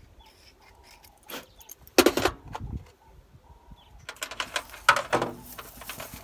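Metal clinks and rattles as a battery terminal clamp and hand tools are handled: one loud clank about two seconds in, then a quick run of jangling clicks between about four and five seconds in.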